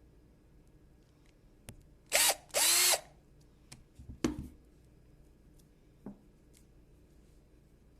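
Small electric power-tool motor run in two short trigger bursts a little over two seconds in, each spinning up and winding down. A few light clicks and a knock follow around four seconds in.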